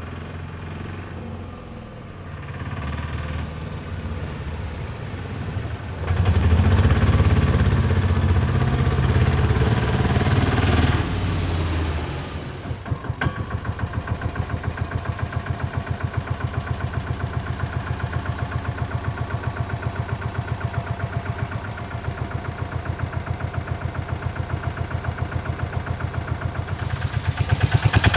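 Diesel autorickshaw engine running. It gets louder with revving about six seconds in, drops back around twelve seconds in to an idle with an even, rapid chugging pulse, and is revved again near the end.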